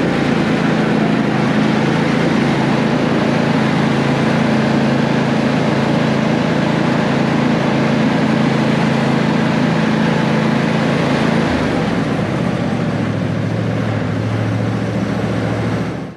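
Briggs & Stratton engine of a LawnBoss 6018 H lawn tractor running steadily on a test run after repair. About three quarters of the way in its note drops lower, and just before the end it stops abruptly.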